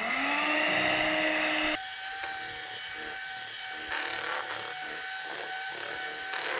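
Electric hand mixer beating cake batter. The motor spins up with a brief rising whine, then about two seconds in settles into a different steady pitch, a little quieter, and runs on.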